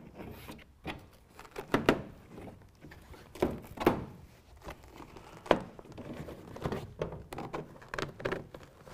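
Irregular knocks and thumps with some rustling, about seven or eight in all: a carpet-like truck bed liner panel being handled, folded under the plastic bed rail cap and pressed against the bed side.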